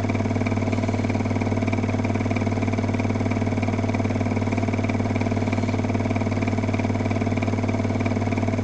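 A steady, unchanging drone with a strong low hum and fixed higher tones, the sound track of a slow-motion video replay rather than live poolside sound.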